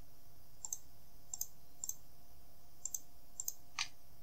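Computer mouse button clicks: about six quiet clicks spread over four seconds, each a quick press-and-release pair, over a faint steady hum.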